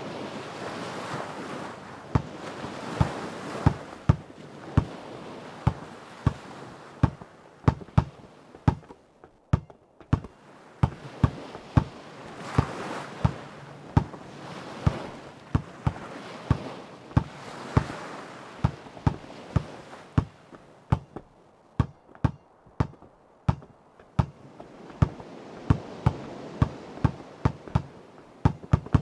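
A basketball dribbled over and over on a hard court, sharp bounces coming in quick runs with short gaps, over ocean waves that swell and wash out every several seconds.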